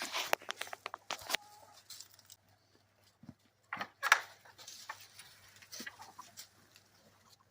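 Chickens clucking, among short sharp crackles and rustles like dry vines being handled, the loudest about four seconds in.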